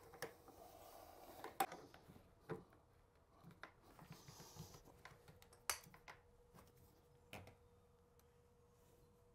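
Near silence broken by a handful of faint, scattered clicks and taps from a shower drain's locking ring being fitted into the drain by hand, over a faint steady hum.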